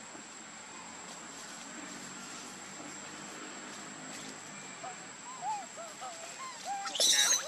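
Young macaques giving short squeaks from about five seconds in, then a loud, high-pitched scream near the end, over a steady high insect whine.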